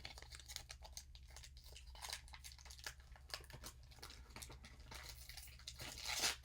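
Foil booster-pack wrapper crinkling and tearing as it is opened, a faint run of small crackles with a louder crinkle near the end.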